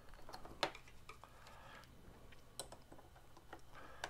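LEGO bricks clicking as they are pressed together and handled: a few faint, scattered plastic clicks, the sharpest about two-thirds of a second in.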